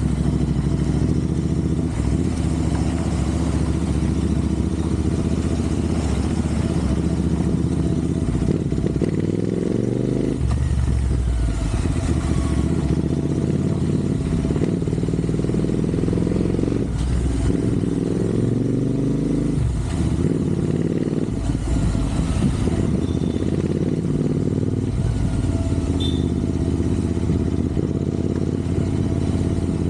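Royal Enfield Interceptor 650 parallel-twin engine running under way. Its revs climb steadily and drop away sharply several times, as with throttle changes or gear shifts.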